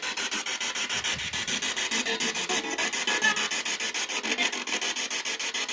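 Ghost-hunting spirit box: a radio scanning rapidly through stations, played through a small external speaker. It sweeps as an evenly chopped burst of static many times a second, with snatches of radio stations caught in passing.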